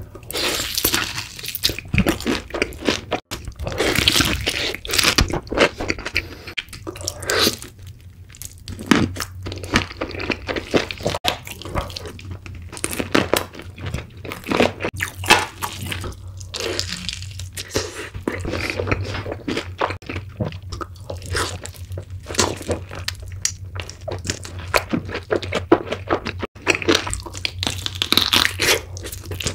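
Close-miked crunching and chewing as fried chicken covered in cheese sauce is bitten and eaten, with many irregular crackly crunches.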